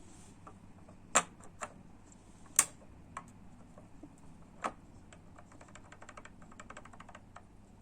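Small sharp clicks and taps from handling a desktop CPU over its LGA 1155 motherboard socket, a few separate clicks in the first five seconds, then a quick run of faint ticks.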